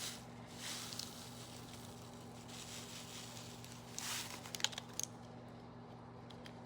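Faint handling noises of small crafting pieces: a brief rustle about four seconds in and a few light clicks, over a steady low electrical hum.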